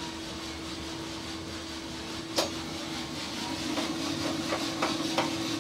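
Giesen drum coffee roaster running mid-roast: a steady hum of motor and airflow with one constant drone. A single sharp knock comes about two seconds in, and a few light clicks near the end as the bean sample trier is worked.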